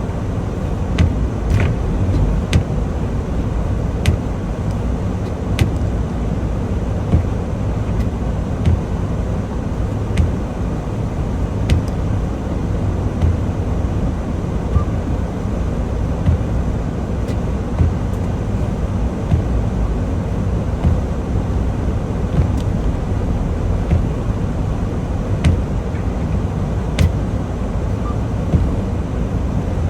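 Steady low rumble of a semi truck heard from inside the cab, with a short sharp click recurring about every one and a half seconds.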